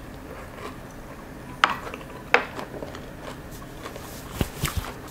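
Utensil clinking against a ceramic serving bowl as it is set down: two sharp clinks about a second and a half and two and a half seconds in, followed by a few small ticks and some soft low thuds near the end.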